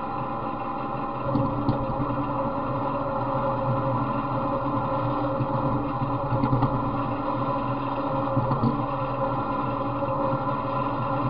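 Off-road riding lawn mower's small engine running at a steady speed while the mower is driven, with a few short clattering knocks from the machine as it bumps along.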